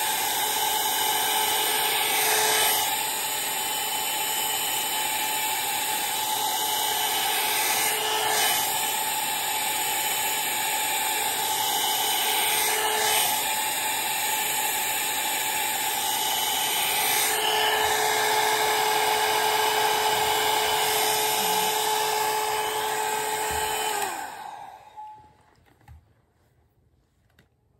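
Handheld hair dryer blowing steadily with a motor whine. Near the end it is switched off and the whine falls away as the motor winds down.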